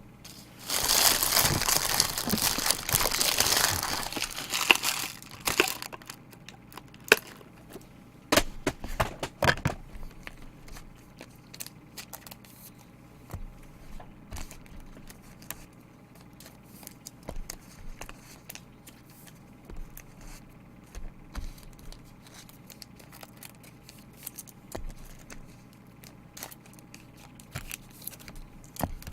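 Crinkly wrapper on trading-card packaging being torn open and crumpled for about five seconds. Scattered light clicks and taps of cards and packaging being handled follow.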